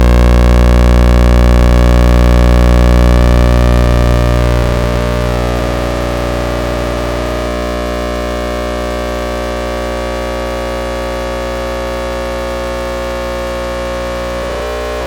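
Old thyratron tube wired as a sawtooth oscillator, giving a loud buzzing drone rich in overtones. About four seconds in, the tone breaks up and warbles, shifting pitch for a few seconds, then settles into a quieter steady buzz. The erratic behaviour is typical of a worn tube, as the owner suspects.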